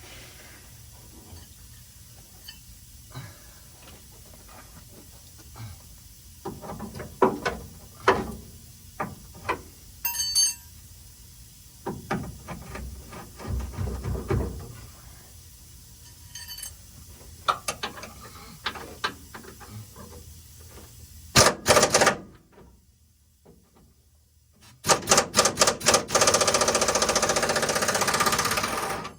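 Scattered clanks and knocks of tools being handled, then a pneumatic impact wrench hammering on a bumper bolt: a short burst about two-thirds through, then a run of quick bursts that become a few seconds of continuous rattling near the end.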